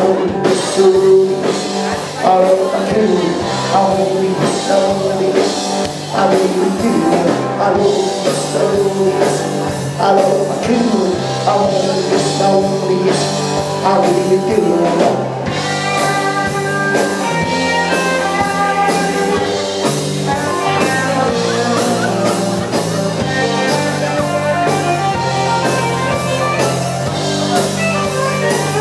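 A live rock band playing a blues-tinged rock number: drums, electric guitar and bass, with a sung lead vocal.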